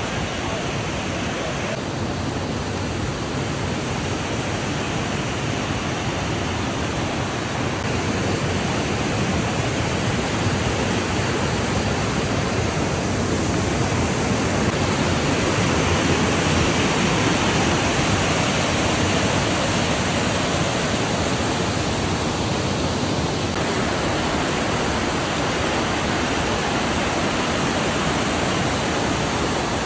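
Waterfall: falling water pouring in a steady, even rush, a little louder in the middle.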